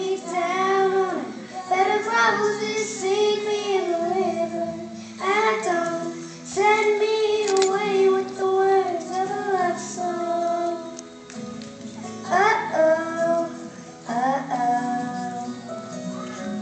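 A young girl singing a song in phrases with held notes, over a steady musical accompaniment.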